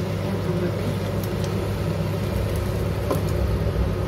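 Induction hob running with a steady low hum, with a light tap about three seconds in.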